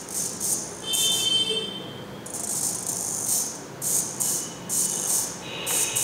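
Small hobby servo motor whirring in repeated short bursts, some with a thin whine, as it swings its horn back and forth under thumb-joystick control.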